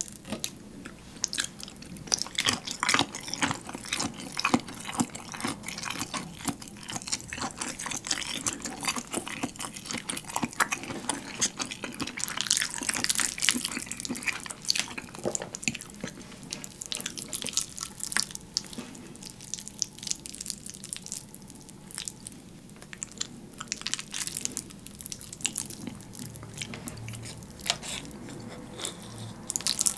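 Close-miked eating of spaghetti in a thick, sticky cream sauce made heavier with melted mozzarella: wet mouth sounds of noodles being drawn in and chewed, heard as a dense run of small clicks and smacks.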